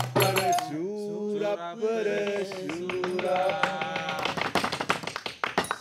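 Men singing together at a table with no instruments: a voice holds and slides long notes, kept in rhythm by hand claps and taps.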